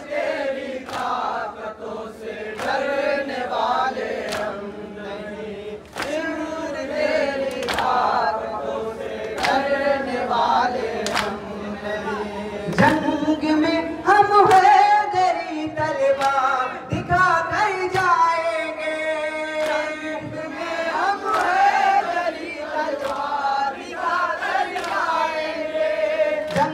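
Male reciters singing a noha, a Muharram lament, into microphones in a chanting melody, with other voices joining in. Sharp chest-slaps of matam mark a rough steady beat under the singing.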